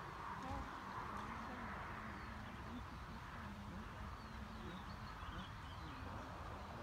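Outdoor ambience: wind rumbling on the microphone, with a few faint bird chirps.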